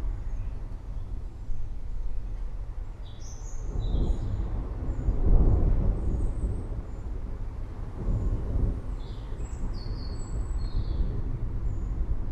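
Distant thunder rumbling low, swelling about four to six seconds in and again briefly near eight seconds, with birds calling in short high chirps twice.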